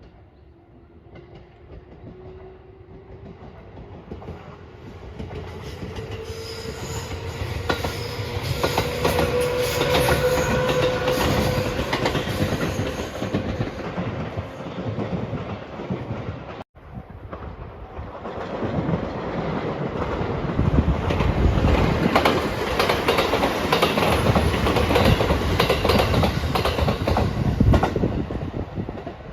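Passenger trains passing close by, one after another, wheels clattering over the rail joints. The first carries a steady tone that rises in pitch as it approaches. After a sudden cut a second train passes, loudest in the second half.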